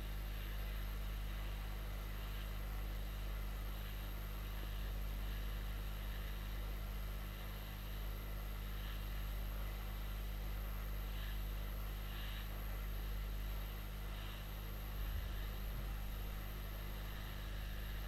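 Steady hiss of a hot air rework station blowing on a phone logic board to melt the solder under a connector, over a low electrical hum.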